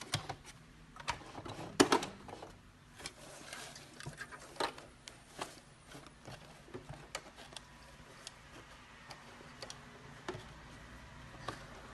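Scattered clicks and light knocks from work at a sewing machine while a lace wig is sewn, loudest about two seconds in. A faint steady hum sets in near the end.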